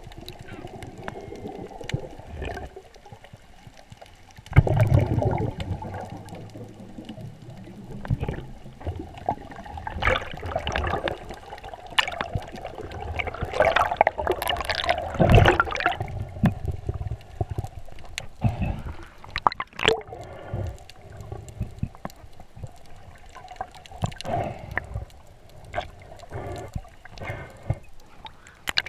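Muffled underwater water noise picked up through a camera housing below the surface: irregular swishing and gurgling as the swimmer moves, with louder surges about five and fifteen seconds in.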